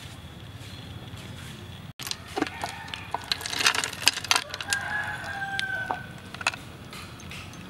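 A rooster crows once about five seconds in, ending on one long held note. Before it come sharp clinks and a splash as liquid is poured from a metal pot into a ceramic bowl.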